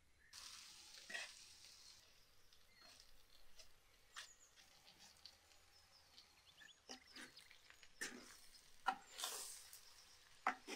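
Fish and potato filling sizzling faintly in a clay pot over a wood fire as crumbled potato is dropped in and worked with the hands, with scattered soft taps and clicks. The hiss swells again near the end.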